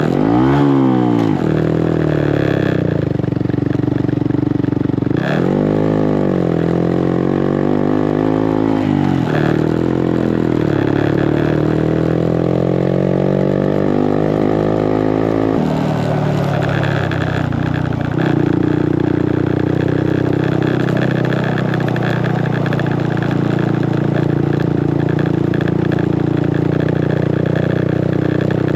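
Small single-cylinder motorcycle engine heard from on board while riding, its pitch rising and falling with the throttle and gear changes through the first half, then running at a steadier speed.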